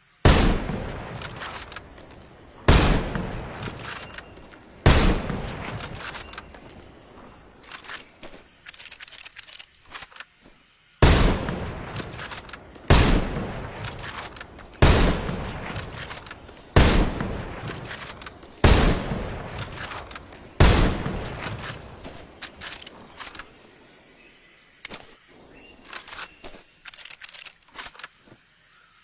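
Mosin-Nagant bolt-action rifle firing a series of single shots, mostly about two seconds apart, each with an echoing tail. Quieter metallic clicks fill two longer pauses.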